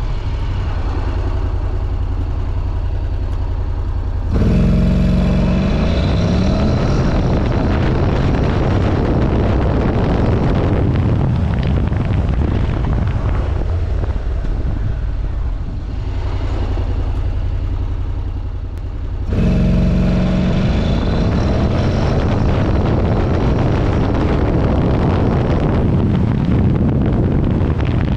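Honda NC750XD's 745 cc parallel-twin engine idling, then opening up to full throttle about four seconds in, its pitch rising as the dual-clutch gearbox takes it up through the gears. The engine eases off around sixteen seconds, and a second full-throttle acceleration run begins about nineteen seconds in.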